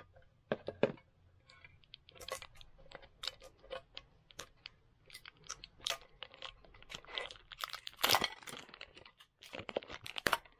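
Plastic shrink wrap crinkling and crackling in many irregular little snaps as fingers pick at it and peel it off a small metal card tin, loudest about eight seconds in.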